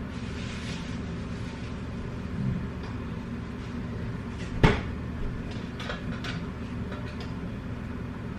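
Kitchen handling sounds over a steady low hum: one sharp knock a little past halfway, then a few lighter clicks.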